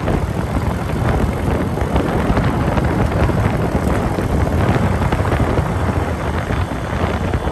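Wind buffeting the microphone of a camera moving at speed: a loud, steady rumble.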